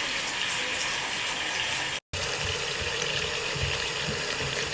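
Water running steadily from a tap, with a brief dropout about two seconds in.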